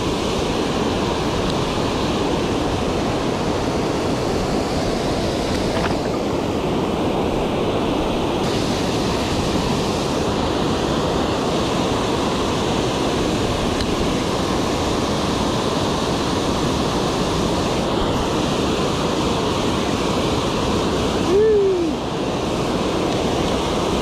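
Steady rushing of water pouring over a low river spillway. Near the end comes one short sound that rises and then falls in pitch.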